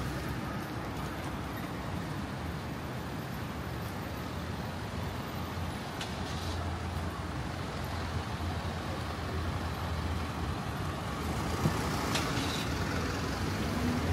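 Road traffic on a city street, with a heavy vehicle's engine running low and steady from about four seconds in and a single sharp click near the end.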